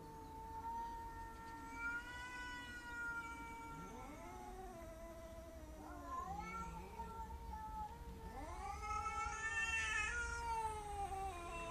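Cats caterwauling: long, drawn-out yowls from at least two cats overlapping at different pitches, slowly rising and falling and swelling loudest near the end.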